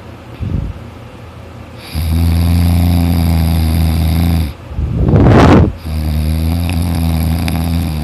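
A sleeping person snoring loudly: two long, steady droning snores of about three seconds each, with a short rough breath between them. The heavy snoring comes from deep sleep after exhaustion.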